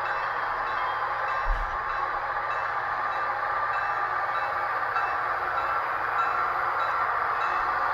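Model Amtrak SDP40F diesel locomotive running, its Soundtraxx Tsunami 2 sound decoder playing a steady diesel engine sound over the rolling noise of the model train on the track. There is a brief low bump about a second and a half in.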